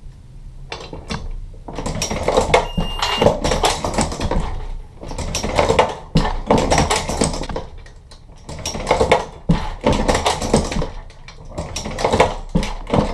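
A Dillon XL650 progressive reloading press is cycled repeatedly. Metallic clacking and clinking of the handle stroke, the shell plate indexing and the brass cases comes in bursts roughly every three seconds, starting about two seconds in. The press is fitted with a low-mass detent ball and a reduced-power detent spring, and the handle is being run fast and hard.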